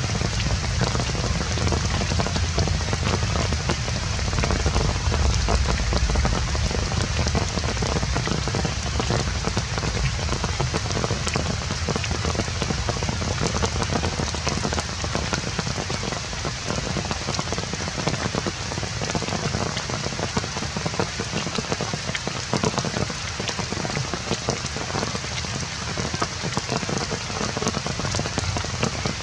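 Steady rain falling, a dense, continuous patter of drops.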